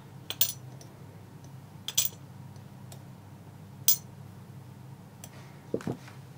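Small metal lock parts clicking and clinking against a tray and tools while a six-pin lock cylinder is taken apart. There are three sharp clicks about two seconds apart with faint ticks between them, and a duller knock near the end.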